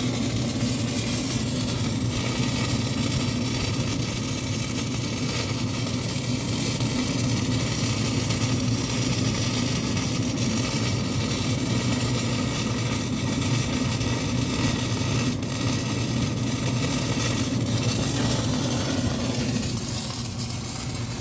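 A steady, unbroken machine hum like a running engine, with a low drone and an even hiss over it.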